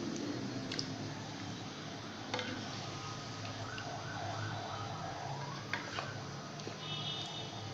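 Chicken cooking in a karahi with a steady frying noise, and a few sharp clicks of a spoon against the pan. Around the middle a wavering tone rises and falls for about two seconds, like a distant siren.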